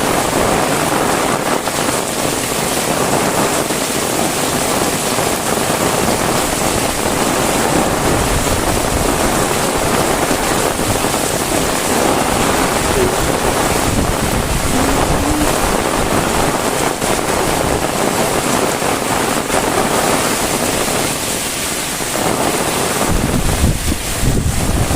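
Heavy rain falling in a steady, loud downpour. Near the end, wind buffets the microphone with a low rumble.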